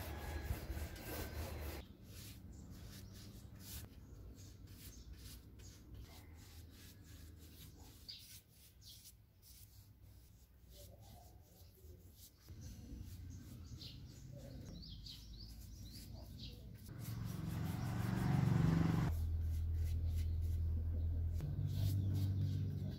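A paint roller rolling on plywood for about the first two seconds, then quiet paintbrush strokes on wooden frames with birds chirping in the background. A low steady hum comes in about two-thirds of the way through and is the loudest sound.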